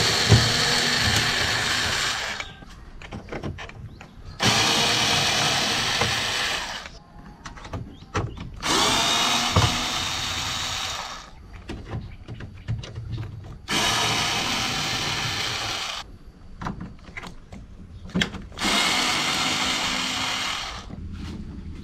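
Cordless drill-driver running in five separate bursts of two to three seconds each, driving screws one after another into a van's tailgate, with small clicks and knocks in the gaps between.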